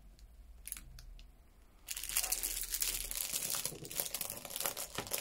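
Thin plastic film crinkling as hands handle and unwrap a shrink-wrapped clear plastic storage box. It starts about two seconds in, after a few faint clicks.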